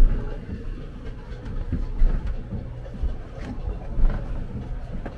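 Steady low rumble of a railroad car rolling, with a heavier knock about every two seconds.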